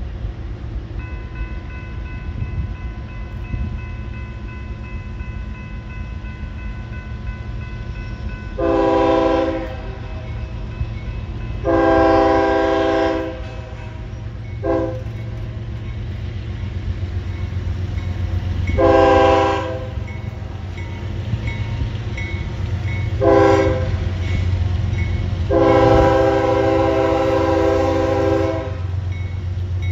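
Freight train's diesel locomotives approaching a grade crossing. The air horn sounds a series of loud chords, four long and two short, over a steady engine rumble, with the crossing signal's bell ringing faintly.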